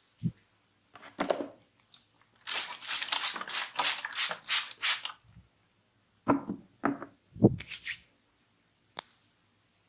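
Hands-on massage sounds: a single thump, then a fast run of about a dozen sharp slaps or snaps at roughly four to five a second, then three heavier thumps.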